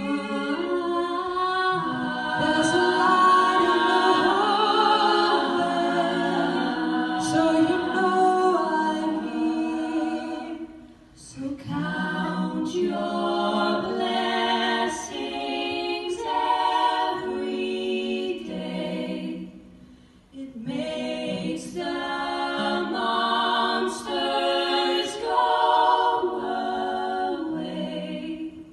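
A six-woman female vocal group singing a cappella in close harmony, their voices amplified through handheld microphones, with two short breaks between phrases.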